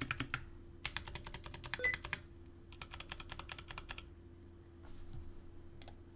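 Typing on a Drop Alt High Profile mechanical keyboard with lubed Zealios v2 62g tactile switches. There are three quick runs of keystrokes in the first four seconds, then a couple of single presses near the end.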